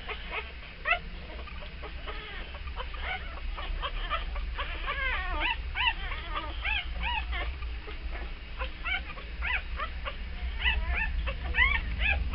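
Seven-day-old beagle puppies squeaking and whimpering while they nurse: many short, high-pitched squeaks overlapping, over a low steady hum.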